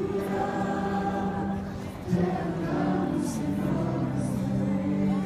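Many voices singing together, a worship song with long held notes.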